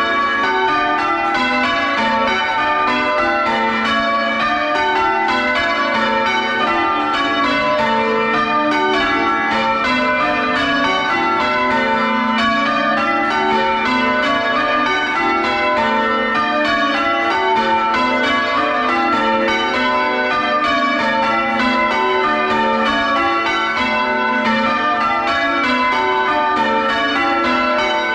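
The front six church bells of a ring being rung full circle in change ringing, a steady stream of loud, overlapping strikes heard close up from inside the bell chamber.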